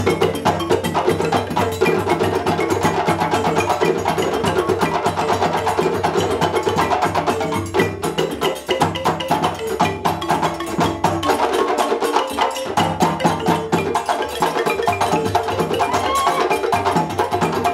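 West African drum ensemble playing: a row of djembes struck by hand in a fast, dense rhythm, with the wooden mallet notes of a balafon ringing over it.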